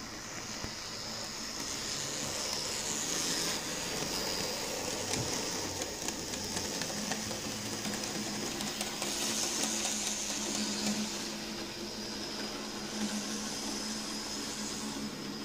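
Dapol N gauge Class 66 model locomotive running on track, its small electric motor and gears whining steadily, with the wagons' wheels rumbling along the rails. The whine swells and fades a little as the train passes.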